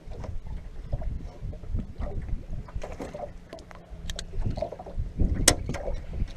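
Wind rumbling on the microphone aboard a small fishing boat, with scattered light knocks and clicks; the sharpest comes about five and a half seconds in.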